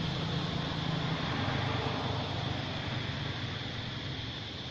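Low, steady motor hum of a distant vehicle that slowly fades, over a steady outdoor hiss.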